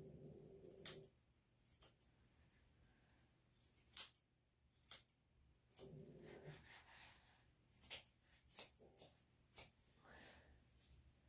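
Steel grooming scissors snipping through a Lhasa Apso's matted face hair: sharp metallic snips, some single and some in quick runs of two or three, with pauses between.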